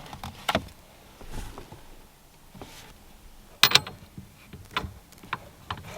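Hand tools and sockets being handled: scattered light clicks and knocks, the loudest a sharp clack a little past halfway.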